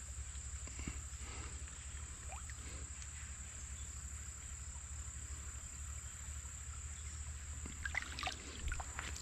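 Quiet creekside ambience: a steady high-pitched insect drone over a low rumble, with a few faint clicks, the clearest near the end.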